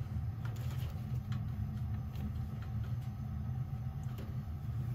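A steady low mechanical hum, with a few faint clicks as small metal parts are handled at a boiler's gas valve.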